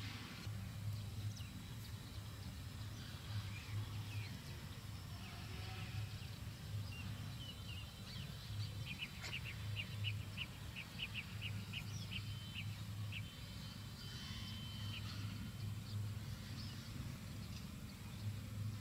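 Outdoor background with a low, on-and-off rumble; about halfway through, a bird calls a rapid run of short high chirps, several a second.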